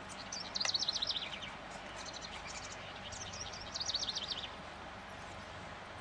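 A songbird singing two quick runs of high chirping notes, each falling in pitch, the first about half a second in and the second near four seconds in, with a few faint chirps between, over a steady background hiss.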